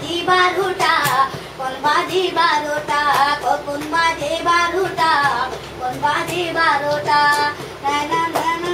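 A child singing a song, holding and bending long notes.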